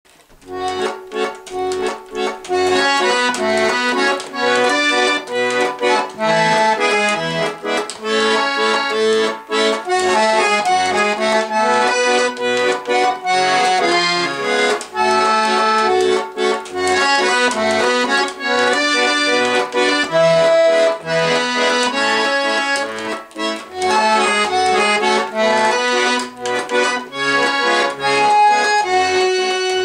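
Russian garmon (button accordion) playing a lively melody on the right-hand buttons, with short left-hand bass notes and chords under it. The playing starts about half a second in.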